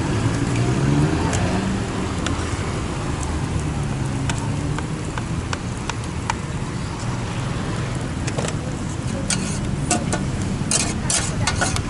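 Metal spatula scraping and clanking on a large flat steel pan as rice noodles are stir-fried, in a dense run from about nine seconds in. Before it, scattered sharp taps, such as a knife on a cutting board, over a steady traffic rumble.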